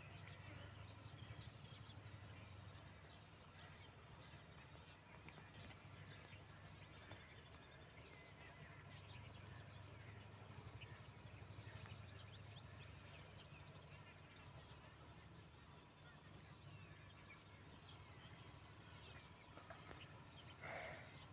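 Near silence: faint outdoor ambience with a steady low hum and scattered faint chirps, and one brief louder sound near the end.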